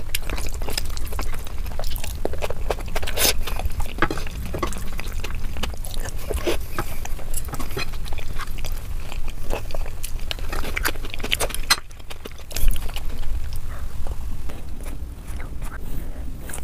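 Close-up mouth sounds of a person chewing a full mouthful of spicy rice: a dense run of wet clicks and smacks, sped up to double speed, with a brief lull about two-thirds through.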